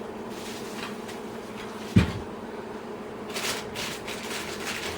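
Handling noise as mower parts are moved in the cardboard box: one sharp knock about two seconds in, then a short rustle, over a steady buzzing hum.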